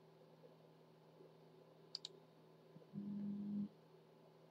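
Two quick mouse clicks, a double-click, about two seconds in, then a short low hummed "mmm" from a voice near three seconds in, over a faint steady electrical hum.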